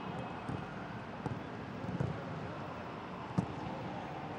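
Steady outdoor stadium ambience with a few sharp thuds of footballs being struck on the pitch, about three in all.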